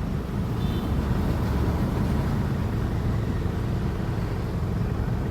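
An engine running steadily, a low, even drone that does not change.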